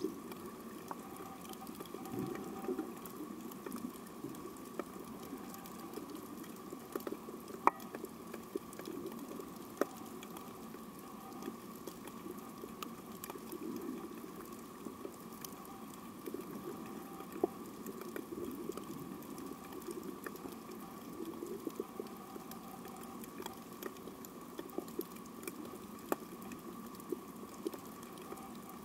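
Underwater ambience on a shallow coral reef: a constant crackle of scattered sharp clicks over a low wash of water, with a faint steady hum underneath.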